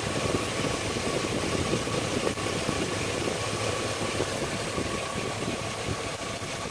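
Chevy Silverado's 5.3-litre LS V8 idling steadily, heard close at the alternator and belt drive, with a thin steady whine above it. The 385,000-mile engine, never taken apart, runs with nothing unusual to hear: not too bad for its mileage.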